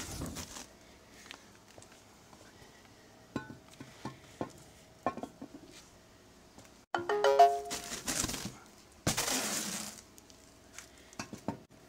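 Steel drop spindles handled out of their cardboard box: scattered knocks and clinks, a short ringing tone about seven seconds in, and a rustle of packaging around nine seconds.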